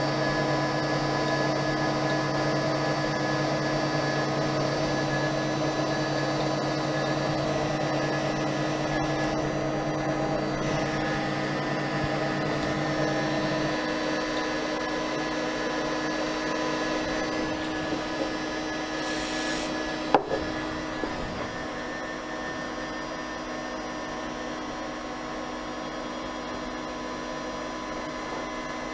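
6040 CNC router spindle running a 6 mm two-flute end mill through aluminium plate: a steady machine whine of several tones with the noise of the cut. A low note drops out about halfway through, and a single sharp click comes a few seconds later.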